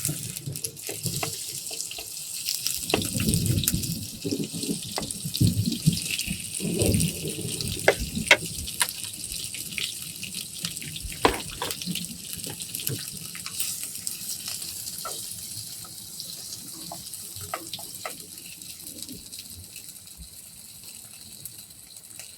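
Steady rain hiss with scattered drops tapping close by. A low rumble comes in about three seconds in and dies away by about eight seconds.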